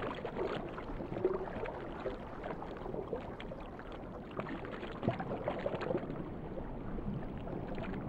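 Faint underwater water sounds: a steady swishing and bubbling wash with a few soft ticks.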